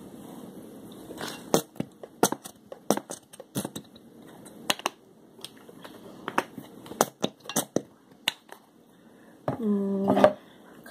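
Plastic squeeze bottle of tartar sauce being squeezed and handled, giving irregular sharp clicks and crackles. A brief low pitched tone of under a second comes near the end.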